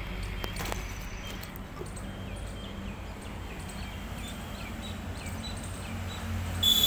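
Street ambience: a low steady hum with birds chirping in short, repeated calls over it. Near the end a louder hiss with a high steady whine comes in.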